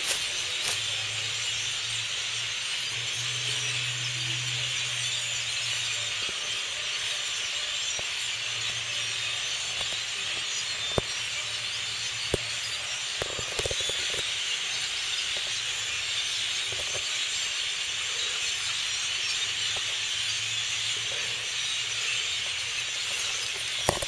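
A large flock of birds in the treetops, many calling at once in a dense, steady high-pitched chatter.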